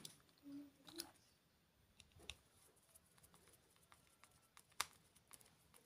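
Near silence broken by a few faint clicks and light scrapes as a screwdriver turns the screw into a plastic mains plug housing.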